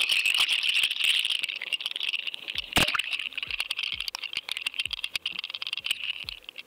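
Underwater audio from a submerged action camera in its waterproof housing: dense crackling and rapid clicking, with one sharper knock about three seconds in.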